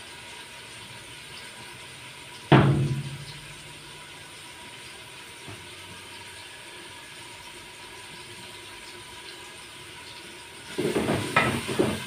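Steady low hiss with a single loud knock about two and a half seconds in that rings briefly. From about eleven seconds, a ladle scrapes and clatters in a steel pot as onions are stirred into hot ghee.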